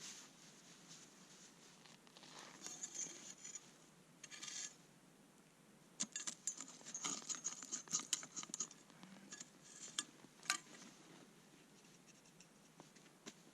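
Faint, intermittent scrapes, rustles and small sharp clicks of things being handled up close, in bursts about three seconds in, again around four and a half seconds, and in a busier run from about six to nine seconds, with one sharper click about ten and a half seconds in.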